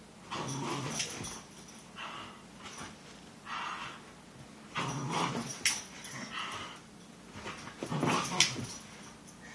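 English Bull Terrier making short bursts of noisy play vocalising, about six in all, while tugging hard on a rubber toy. A couple of sharp clicks come through as well.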